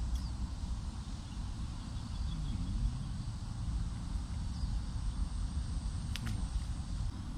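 Steady low outdoor rumble with faint high chirps, and one sharp click about six seconds in.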